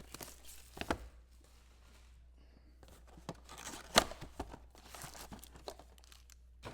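Trading-card pack wrappers being torn open and crinkled by hand, with scattered rustling and clicks and a sharp snap about four seconds in.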